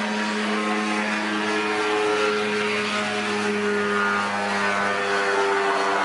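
Ultralight aircraft's engine and propeller running at takeoff power, a steady droning hum that grows a little louder as the plane rolls and lifts off.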